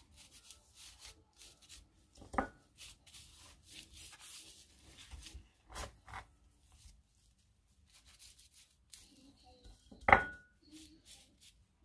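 Hands rubbing lemon and seasoning into raw pork skin: soft, scattered rubbing and scraping noises, with two sharp knocks, the louder one about ten seconds in.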